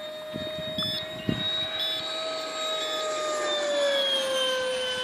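Electric ducted fan of a model L-39 jet (90 mm Wemotec Midi Fan driven by an inrunner motor) whining at a steady high pitch as the plane flies past. The pitch falls a little over the last second or so.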